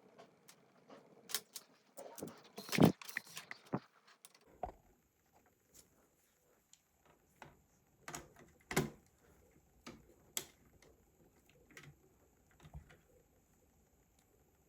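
Scattered small clicks and taps from laptop parts being handled as the RAM and Wi-Fi card are removed from the open laptop. The sharpest clicks come about three seconds in and again near nine and ten seconds.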